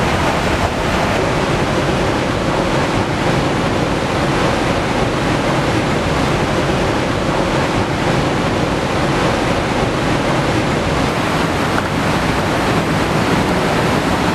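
Waterfall rushing: white water pouring steadily through a rock gully into a pool, a dense even noise that doesn't change.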